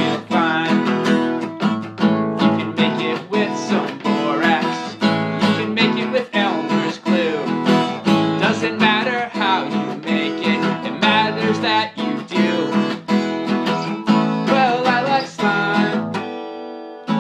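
Instrumental break of a children's song: acoustic guitar strummed in a steady rhythm, with a wavering lead melody line over it. Near the end the strumming stops and a chord rings out and fades.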